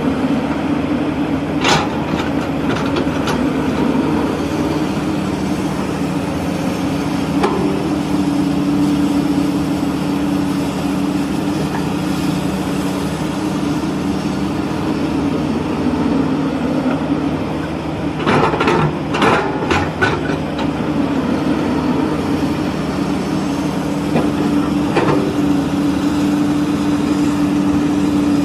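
Steady idling engine drone, with short plastic clacks and sand scraping as a toy excavator's bucket tips sand into a plastic toy dump truck's bed, a cluster of them about two-thirds of the way in.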